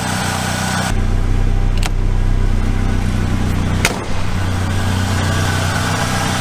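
1991 Ford Ranger's 2.3-litre four-cylinder engine idling steadily, with a heavier low rumble for about three seconds starting a second in and two sharp clicks about two seconds apart.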